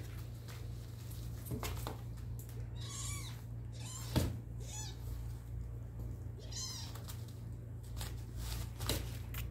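Kittens mewing, two high-pitched mews about three and seven seconds in, amid light rustling and tapping of paws on puppy pads and cardboard, with one louder knock about four seconds in.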